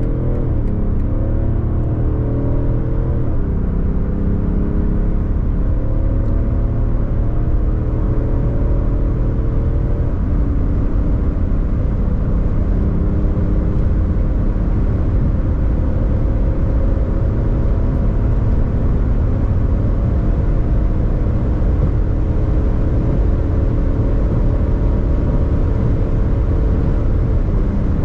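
Alpina XD3's quad-turbo straight-six diesel under full-throttle acceleration. Its note climbs steadily through the gears and drops back at upshifts about 3 s in, about 10 s in, and near the end, over steady tyre and wind noise at high speed.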